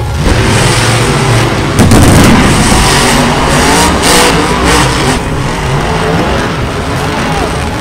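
Monster truck engines revving hard and running at full throttle, pitch swinging up and down. There is a sudden loud burst about two seconds in and several sharp bursts of noise after it.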